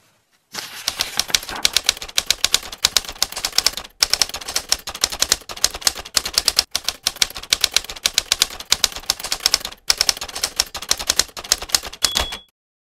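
Typewriter keys striking in quick succession, several keystrokes a second, with three brief pauses in the typing. A short ringing tone sounds near the end, just before the typing stops.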